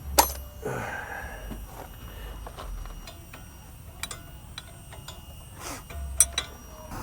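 Scattered sharp metallic clicks and knocks of hand tools working on the hub, a few seconds apart, loudest just after the start and about six seconds in.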